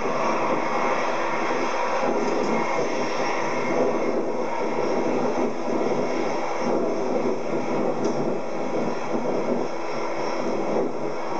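Jet engines of an Airbus A340-300, four CFM56-5C turbofans, running at low taxi power as the airliner rolls by: a steady, even jet noise that holds at one level.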